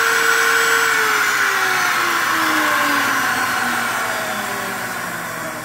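Tensilkut I sample-cutting machine's cutter-head motor spinning down after being switched off: its steady whine holds for about a second, then falls in pitch and fades.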